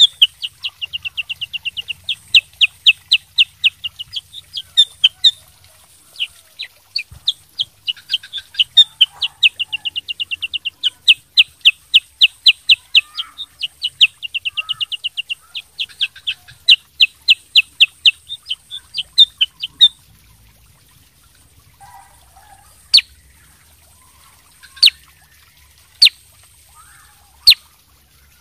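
Black-headed bulbul (kutilang sutra) singing: long fast trills of sharp chipping notes, about ten a second, broken by short pauses. About twenty seconds in the trills stop and only single sharp notes follow, one every second or two.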